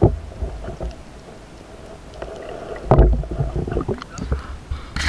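Muffled underwater water noise picked up by an action camera held below the surface: a low rumble with scattered knocks and a louder surge about three seconds in.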